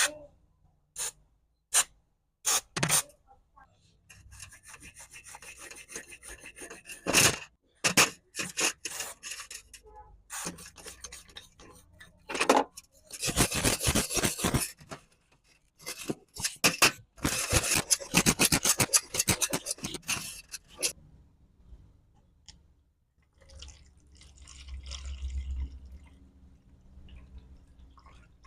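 Hand work on angle grinder parts: scattered clicks and knocks of parts being handled, with rubbing and harsh rasping scrapes in two longer stretches, like scrubbing or filing metal.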